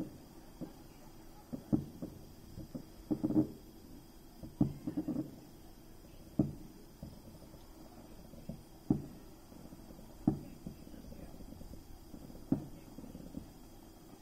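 Fireworks shells bursting in the distance: about a dozen dull booms at irregular intervals, bunched close together in the first five seconds and then coming every second or two.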